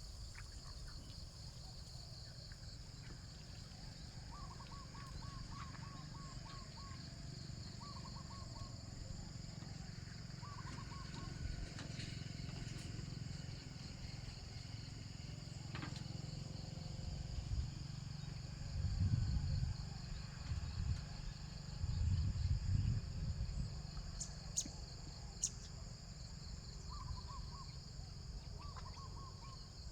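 Rural outdoor ambience: a steady high drone of insects, with short, rapid pulsing calls repeating in groups near the start and again near the end. A low rumble underneath swells twice in the second half.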